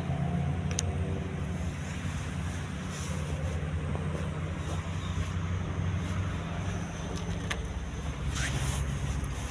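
Steady low rumble of motor traffic on a toll road, with a few faint clicks over it.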